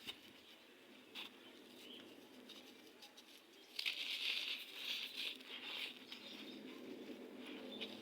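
Gritty red sand crumbling: faint grainy crumbling with a couple of small clicks, then a louder burst of gritty crumbling about four seconds in that eases to softer, steady crumbling.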